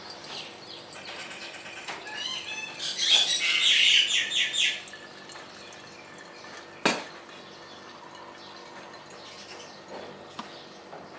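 Birds chirping, with a burst of rapid, repeated high calls about two to five seconds in. A single sharp click, like a cup or utensil being set down, comes near seven seconds in.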